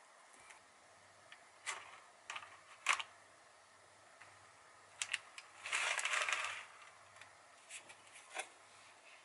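Spatula clicking and knocking against a glass mixing bowl as cake batter is scraped out into a paper-lined loaf pan: a handful of light separate knocks, with one longer scraping rustle of about a second a little past the middle.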